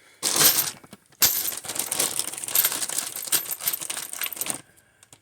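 Electric impact wrench hammering a lug nut onto a wheel stud: a short burst, then a longer run of about three seconds that stops near the end.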